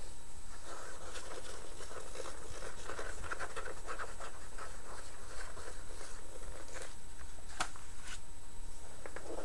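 Fingers and nails rubbing and scratching over glossy magazine pages in a run of small scratchy strokes, with a page turned over and a sharp paper click about three-quarters of the way through.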